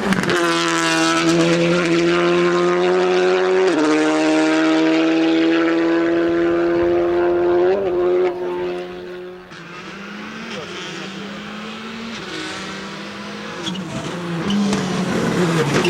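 Rally car engine at full throttle, holding high revs with upshifts about 4 and 8 seconds in, then fading as the car gets farther away. Engine noise rises again near the end.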